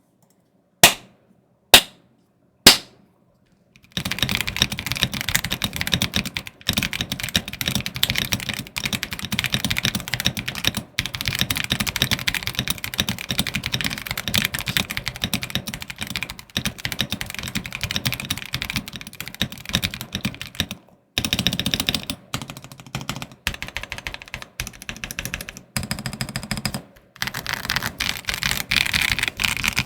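Three single sharp clicks about a second apart, then fast typing on a GMK67 gasket-mount mechanical keyboard with Holy Panda tactile switches and PBT keycaps: a dense run of key clacks that starts about four seconds in and breaks off only in a few brief pauses.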